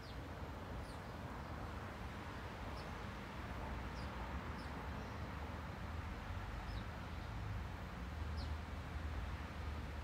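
Small birds chirping outdoors: a short, high, falling chirp every second or two, over a steady low background rumble.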